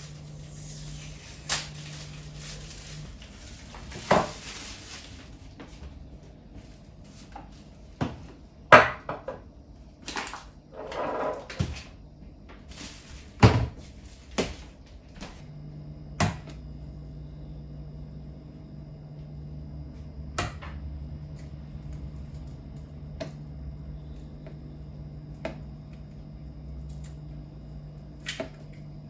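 Kitchen prep sounds: scattered knocks and clatters of utensils and dishes on a counter, loudest about 9 and 13 seconds in, over a low steady hum.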